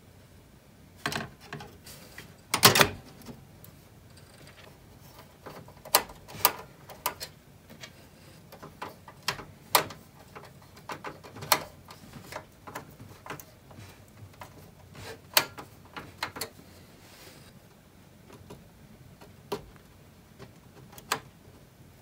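Scattered clicks and knocks of a graphics card being handled and fitted into a desktop PC case, with a screwdriver working at the metal expansion-slot bracket. The loudest knocks come about two and a half seconds in.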